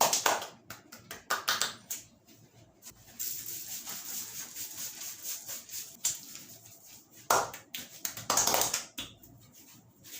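Hands working on a head during a head massage: a few quick slaps in the first two seconds, then several seconds of rubbing hiss over hair and skin, and two more rushes of rubbing near the end.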